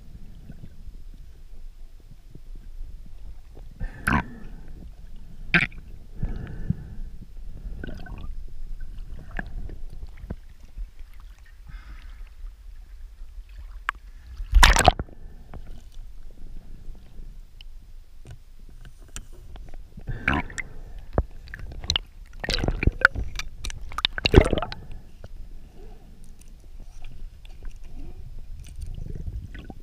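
Water sloshing and gurgling around a camera at the sea surface and just below it. Scattered sharp knocks and splashes cut through, the loudest about halfway and several more close together near the end.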